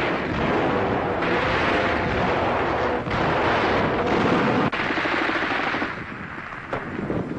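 Rapid machine-gun fire in sustained bursts, easing off for about a second and a half near the end.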